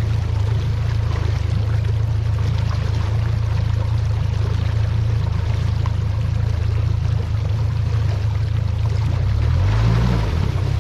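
Boat motor running steadily while under way, with water rushing along the hull; the engine note shifts briefly near the end.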